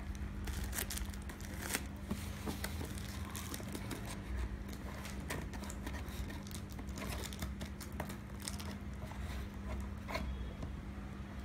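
Scissors snipping at packing tape and string on a cardboard parcel, with irregular crinkling and crackling of the tape, plastic wrap and cardboard as it is worked open.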